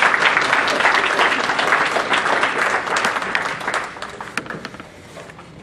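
Audience applauding: many people clapping, strong at first and dying away over the last couple of seconds.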